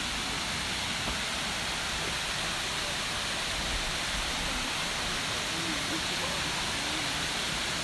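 Waterfall water rushing steadily, an even hiss of falling and splashing water.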